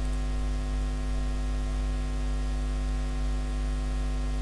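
Steady electrical mains hum with a ladder of overtones, picked up on the voice-over microphone.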